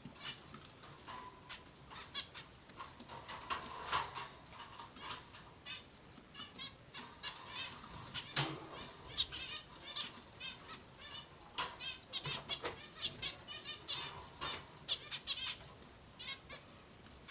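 Zebra finches chirping: a busy run of short, quick calls, several a second, some overlapping.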